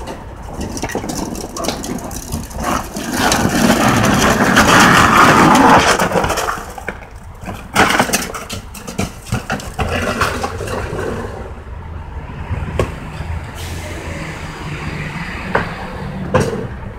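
A 1980s rear-loader garbage truck at work: its engine and hydraulic packer run throughout. About three seconds in, a loud churning, crushing noise builds for several seconds and then dies away. After that the truck settles to a steady low drone, with scattered knocks and clatter as trash goes into the hopper.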